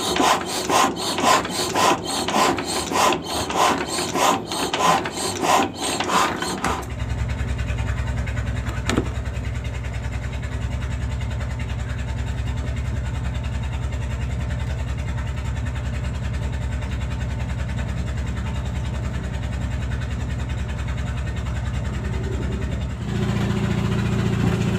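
Rhythmic scraping or rasping strokes, about three a second, then a steady engine-like running hum that steps up louder near the end, with a single sharp click in between.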